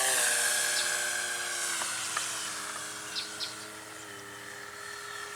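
Electric motor and propeller of an E-flite Extra 330 RC model plane whining in flight. The pitch steps down just after the start and again about two seconds in, and the sound fades as the plane flies away; the motor sounds kind of funky.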